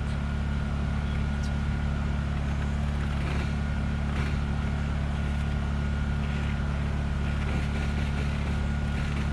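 Steady low mechanical hum like an idling motor, with a faint constant high whine, holding an even level throughout.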